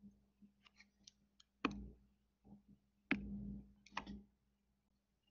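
A few quiet, sharp clicks at a computer desk, three of them more distinct than the fainter ticks between, as a computer is worked during the pause.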